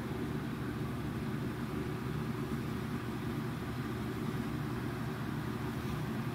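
A steady low hum with a fainter hiss above it, unchanging throughout.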